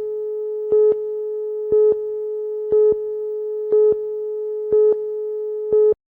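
Videotape leader tone: a steady mid-pitched electronic tone with a louder pip about once a second, counting down to the programme start. It cuts off suddenly near the end.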